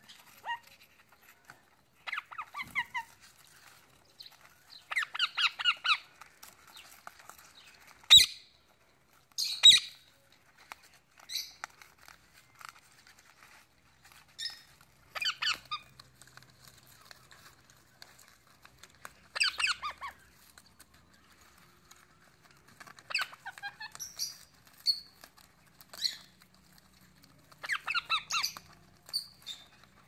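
Pet parrots (Alexandrine, Indian ringneck and African grey) squawking and chattering in short, rapid bursts of calls every few seconds. Two sharp, loud calls about a second and a half apart, roughly a third of the way through, are the loudest sounds.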